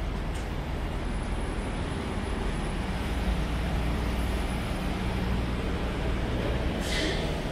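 City street traffic: a steady low rumble of passing vehicles, with a short hiss near the end.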